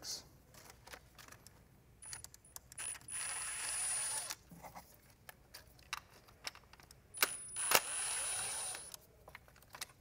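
Cordless electric ratchet running in two bursts of about two seconds each, with a steady high whine, backing out small E6 Torx bolts. Sharp metallic clicks and clinks of the tool and fasteners come between the runs, the loudest a clink shortly before the second run ends.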